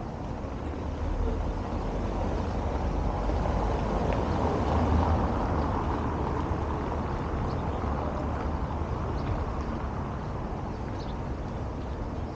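A car passing on the street, its engine and tyre noise swelling to a peak about five seconds in and then fading, over a steady low rumble of wind on the microphone.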